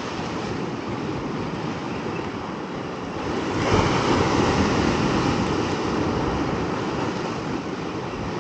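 Ocean surf washing against a sandstone rock ledge, with wind on the microphone; a wave surges in louder about three and a half seconds in, then slowly eases off.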